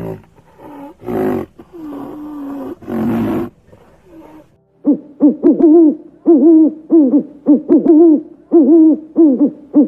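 Rhinoceros calls: a few short rough grunts and one drawn-out moaning call. Then, from about five seconds in, owl hooting: a fast run of loud hoots, about three a second, each note rising and falling in pitch.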